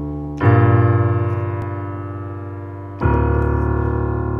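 Slow improvised piano chords: a chord struck about half a second in and another about three seconds in, each held and slowly fading.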